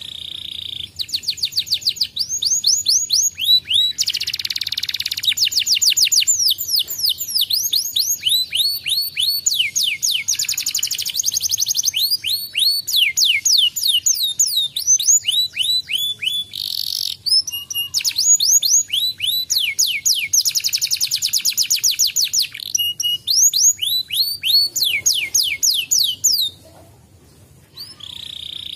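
Domestic canary singing: long phrases of fast trills, each made of rapidly repeated high notes that sweep downward in pitch, changing speed and pitch from phrase to phrase. There is a brief pause near the end before the song resumes.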